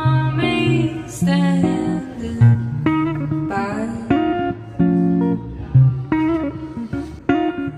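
Background music: a song led by plucked guitar.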